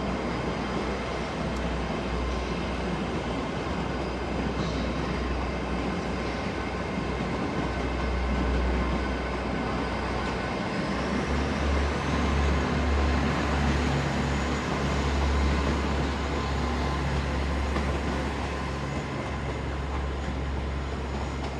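GWR Class 802 bi-mode train running on its underfloor diesel engines as it pulls out of the platform: a steady low rumble that grows louder about eleven seconds in, with a high whine rising in pitch just before.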